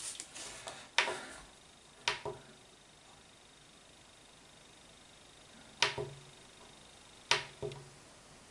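Sharp, separate clicks from a Tenma bench power supply's front-panel controls as its voltage and current are turned down, some coming in pairs, with a quiet gap between them.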